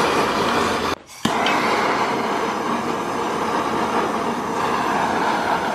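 Handheld gas torch burning steadily as it is played over old rubber bands on a pit bike's rear wheel to burn them off. The flame cuts out briefly about a second in, relights with a click, and runs on steadily.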